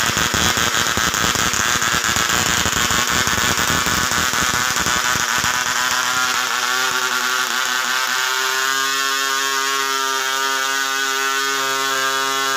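Model-aircraft diesel engine with its propeller, running just after being flick-started. It runs rough and uneven at first, then settles into a steady, even pitch about seven seconds in.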